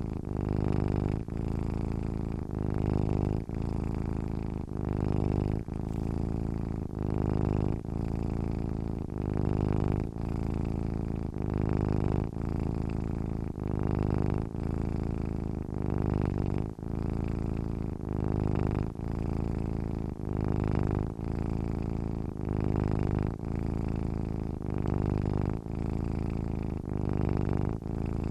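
Sleeping domestic cat purring steadily, a low buzzing rumble that swells and eases with each breath, about once every two seconds.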